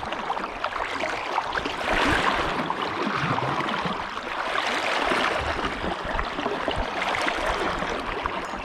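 Fast, high creek water rushing around the legs of someone wading thigh-deep against a strong current, swelling and easing in waves. The water level is well above normal.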